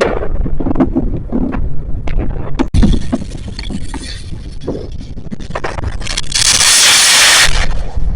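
Consumer fireworks going off: a string of bangs and crackles, a sharp loud bang nearly three seconds in, and a loud hissing, crackling rush lasting about a second near the end.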